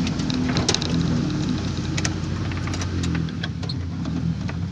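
Off-road vehicle's engine running steadily, heard from inside the cab, with scattered light clicks and knocks.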